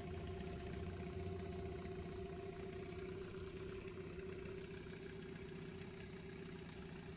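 Yamaha 15 hp two-stroke outboard motor idling steadily at its lowest throttle setting, holding the idle without stalling.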